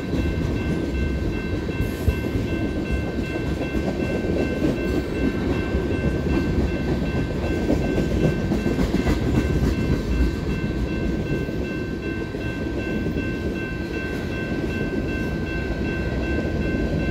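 Freight train cars (tank cars and covered hoppers) rolling past at a grade crossing: a steady, heavy wheel-on-rail rumble with clickety-clack over the rail joints. A steady high ringing tone, likely the crossing bell, sounds above it.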